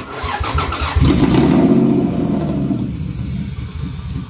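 Toyota 2JZ-GE inline-six cranking on the starter, catching about a second in and running loudly, then sagging as it struggles to keep running. The owner can't tell whether it is getting too much fuel or not enough.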